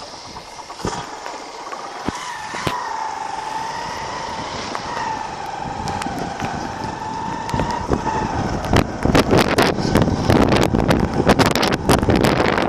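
Ride noise of a moving road vehicle: for several seconds a steady, slightly wavering whine, then from about two-thirds of the way through, louder wind buffeting on the microphone with many sharp rattling clicks.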